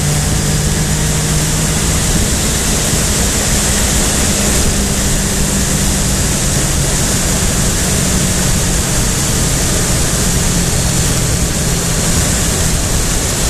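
Heavy wind noise buffeting the camera microphone on a Triumph Tiger 800 XRX at steady cruising speed, with the bike's three-cylinder engine humming evenly underneath.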